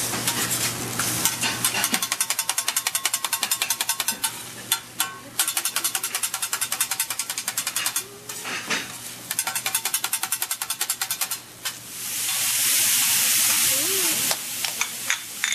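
Metal spatula rapidly chopping and tapping on a hot steel teppanyaki griddle in fast, even runs of clatter with short pauses. Near the end comes a loud sizzling hiss as vegetables hit the hot griddle and steam up.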